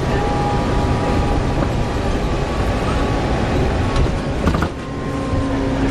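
Volvo B7TL double-decker bus running, a steady low engine rumble with faint thin whining tones above it. A brief knock and dip come just before five seconds in, followed by a steady lower hum.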